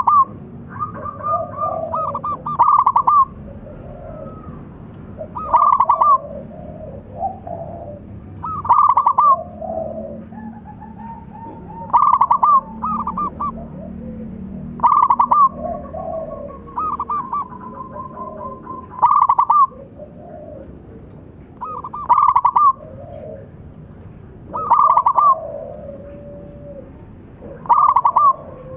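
Zebra dove (perkutut) cooing its song over and over. Each phrase is a quick run of trilled notes, repeated about every three seconds, with softer, lower coos in between.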